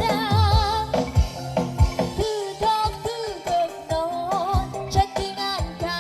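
Song with a vibrato-laden sung melody over a steady drum beat, played loud through a line-array PA with 18-inch subwoofers. The bass drops out briefly about two seconds in.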